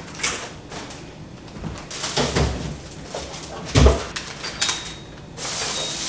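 Food packages and plastic containers being pulled from a refrigerator and handled: plastic zip-top bags rustling and containers clunking against the shelves, with two louder thumps about two and four seconds in.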